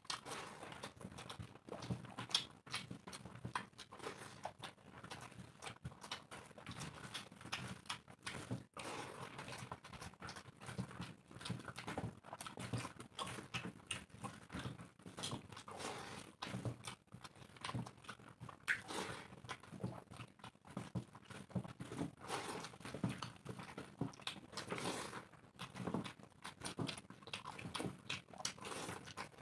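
Two people eating rice and chicken curry with their hands: irregular wet chewing and lip-smacking, with fingers mixing rice against steel plates.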